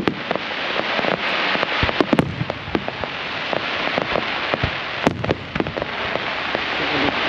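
Aerial fireworks display: a dense crackling wash with several sharp bangs spread through it, the loudest about five seconds in.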